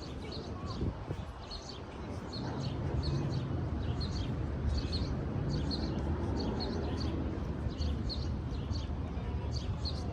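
A small bird chirping over and over, short high notes often in pairs, over a low steady rumble that swells a couple of seconds in.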